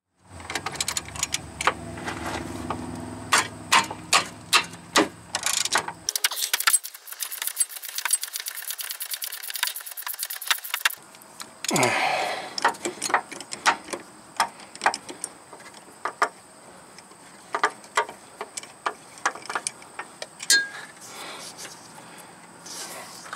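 Socket ratchet on a long extension clicking as it works a fastener on a car's power steering rack, with scattered metal clinks and knocks. A fast, even run of ratchet clicks lasts several seconds in the middle.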